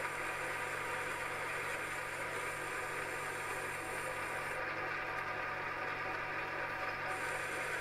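Metal lathe running steadily while a boring bar cuts a mild steel gear blank: a steady hum with several held tones. A thin hiss above it drops away about halfway through and comes back shortly before the end.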